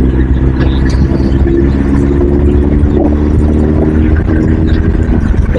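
Vehicle engine running at steady speed over a low road and wind rumble; its even hum fades out about five seconds in.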